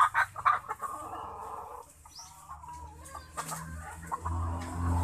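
Chickens clucking and calling, with a short high chirp about two seconds in; a low steady hum swells near the end.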